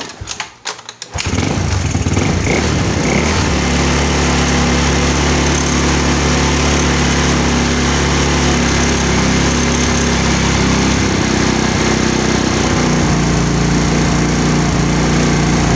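Yamaha Mio Sporty scooter's single-cylinder four-stroke engine, fed by an open carburettor, sputters for about a second, then runs steadily at idle. It now holds its idle with the mixture screw set half a turn out, where it had been too lean to start.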